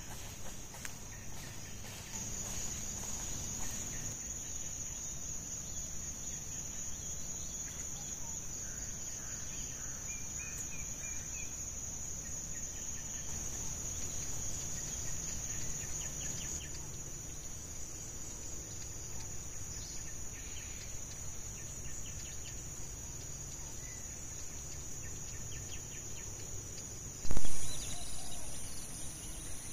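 Steady high-pitched insect drone in the forest, with a few faint bird chirps. Near the end a sudden loud thump cuts in over it.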